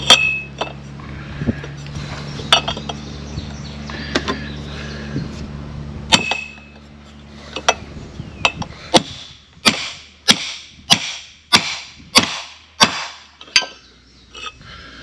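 A hammer striking a pipe to drive a new driveshaft center support (carrier) bearing down onto the driveshaft: about nine sharp metallic blows, evenly spaced a little over half a second apart, in the second half. Before them come light clinks of metal parts being handled.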